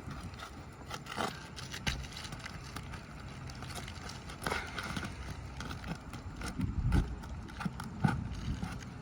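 Irregular knocks, clicks and scrapes of asphalt roof shingles being lifted and worked loose, with a few sharper knocks near the end.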